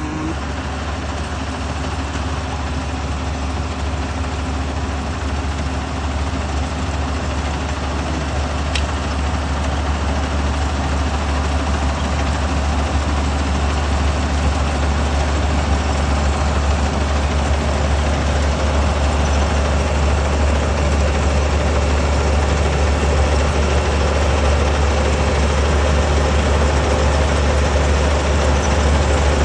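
Kubota ER470 combine harvester running steadily: a deep engine drone with a broad mechanical noise over it, slowly getting louder.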